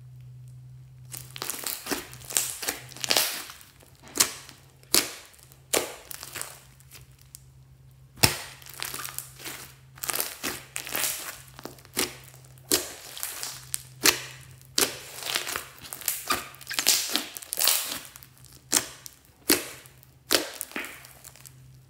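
Hands squeezing, pressing and stretching a thick mass of glitter slime: irregular sticky crackles and pops as trapped air bursts out, with a few louder pops. A faint steady hum runs underneath.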